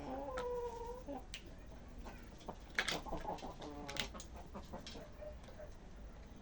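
Chickens clucking: a drawn-out call in the first second and another run of clucks about three seconds in, with a few sharp taps in between.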